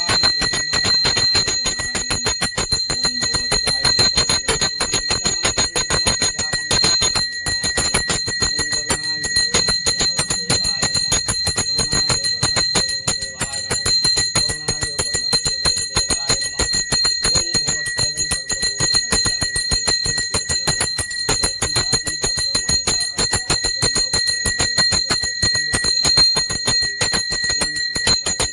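Puja hand bell rung rapidly and without pause, a continuous high metallic ringing for Ganpati worship.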